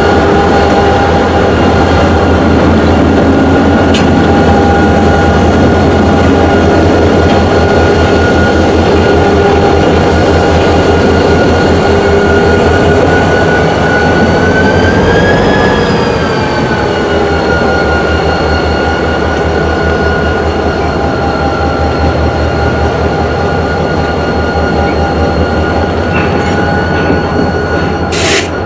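Two EMD SD40-2 diesel locomotives running past at close range: the steady, loud drone of their 16-cylinder engines with a high whine over it. The whine swells up and drops back about halfway through, and there is a short sharp noise near the end.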